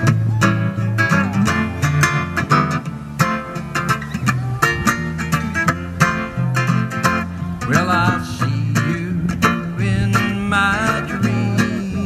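Background music: quick plucked notes over a stepping bass line.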